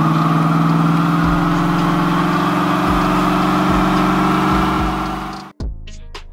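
A car engine held at steady high revs, easing down slightly in pitch, then cutting off abruptly about five and a half seconds in; a few quieter short sounds follow.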